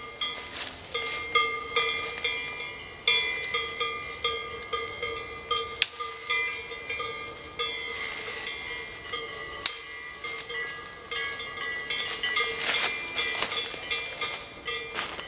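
Cowbells clanging irregularly as grazing cattle move their heads, each strike ringing on at a few fixed pitches.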